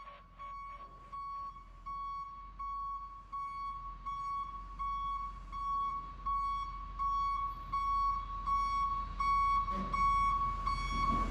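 Vehicle backup alarm beeping a single steady tone about one and a half times a second, growing louder. Electronic background music fades out in the first second.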